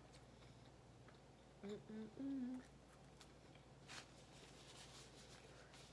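A woman's short closed-mouth hums, three in quick succession about two seconds in, while she chews; otherwise near silence with a steady low hum and a faint click near four seconds.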